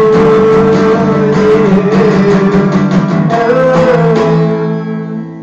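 Acoustic guitar strummed, chords ringing with a long held note wavering above them; the last chord fades away near the end.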